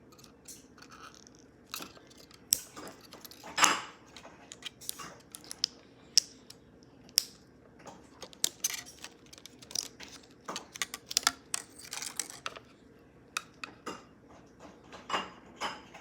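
Irregular light clicks, taps and clatters of small hard objects being handled, with a sharper knock about three and a half seconds in as the loudest.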